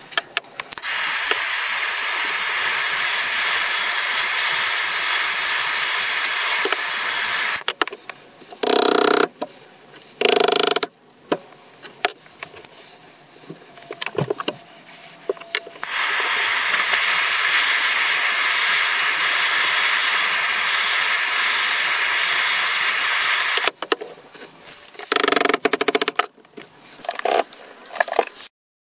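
A handheld gas blowtorch hissing steadily, twice for several seconds each, heating the billhook's tang to burn its seat into the wooden handle. Between and after come short knocks and rubbing as the handle is worked onto the tang.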